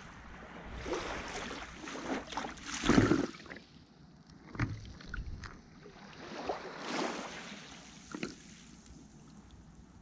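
Sea water splashing and lapping in small surges several times, the loudest about three seconds in, with wind on the microphone.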